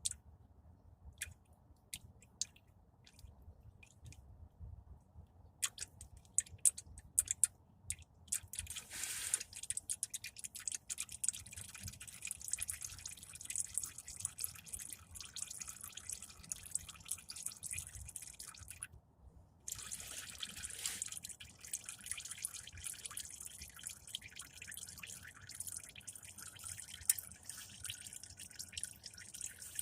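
Engine oil dripping at first, then running in a steady stream. The stream stops briefly about two-thirds of the way through, then starts again.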